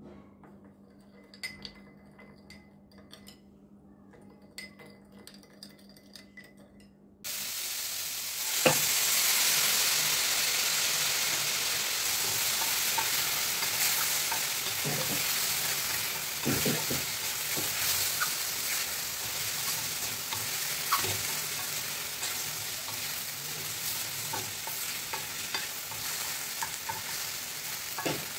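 A spoon clinks a few times against a ceramic bowl, ringing lightly, as sauces are stirred together. About a quarter of the way in, loud sizzling starts suddenly: mushrooms, capsicum and onion stir-frying in a stainless steel pan, with a spatula scraping and tapping the metal as the vegetables are tossed.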